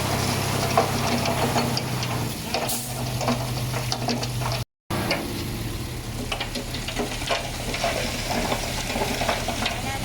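Heavy diesel earthmoving machinery running steadily while stones crunch, click and crackle under it. The sound cuts out completely for a moment about halfway through.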